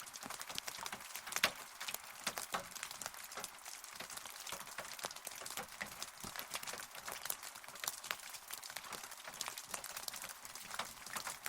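Steady rain: a continuous hiss of falling rain crowded with many sharp, close drop hits.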